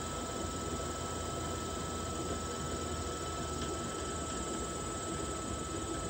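Hilco electric honey extractor running, its reel spinning honey frames with a quiet, even hum and a thin steady whine.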